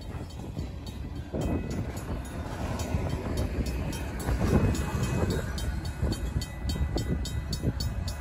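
Union Pacific work train's cars rumbling and clattering over a grade crossing, loudest about halfway through as the last car passes, then moving off. Over it the crossing's RACO mechanical bell rings steadily at about four to five strokes a second.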